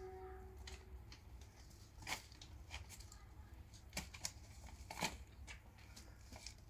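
A kitten's paws and claws scuffling on a concrete floor, heard as faint scattered scuffs and light clicks over a low background hum.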